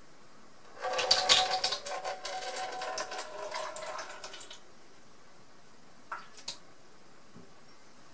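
Water poured from a glass beaker into an empty plastic soda bottle, splashing and gurgling with a ringing resonance for about four seconds. Then two light knocks about six seconds in.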